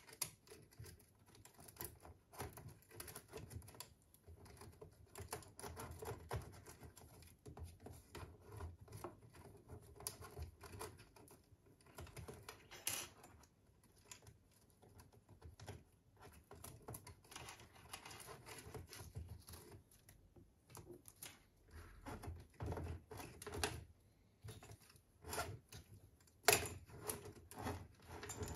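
Quiet, irregular light clicks and rustling as wiring looms and a plastic cable drag chain are handled, with one sharper click near the end.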